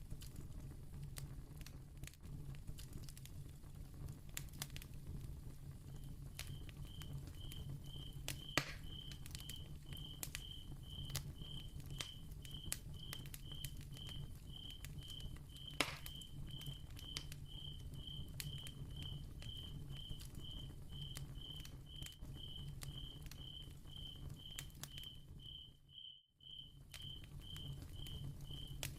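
Crackling ambience of small scattered pops and clicks, with a steady low hum underneath. From about six seconds in a cricket chirps evenly, roughly one and a half chirps a second. Near the end everything briefly drops out.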